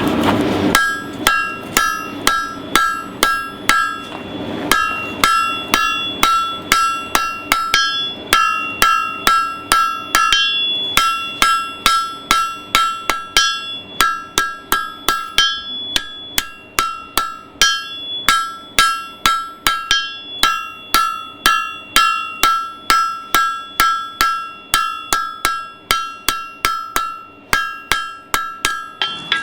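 Blacksmith's hammer striking a hot horseshoe on an anvil, about three blows a second in runs with short pauses. Each blow rings with a clear metallic tone.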